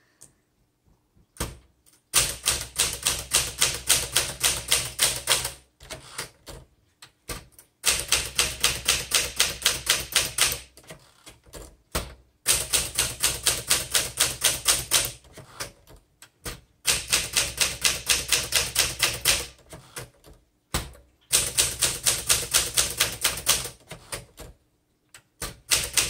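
1964 Smith Corona Classic manual portable typewriter being typed on. It goes in runs of quick, even key clacks, several a second and each run two to three seconds long, broken by short pauses that hold a few single clacks. The machine is typing cleanly, with its keys bouncing right back up.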